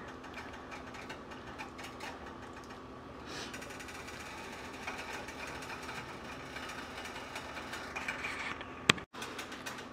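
Pot roast braising liquid simmering in a roasting pan on the stove, a steady patter of tiny bubbling pops over a faint low hum. A single sharp click near the end.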